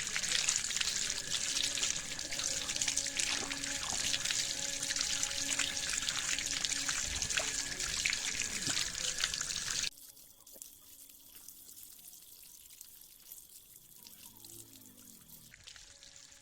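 Water running into a washing machine tub, a steady splashing hiss that cuts off suddenly about ten seconds in, leaving only faint background music.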